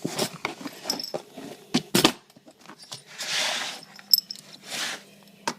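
Scuffling at a door while a cat is being shut in: scattered knocks and clicks with a light metallic jingle, and two short hissing rushes in the middle.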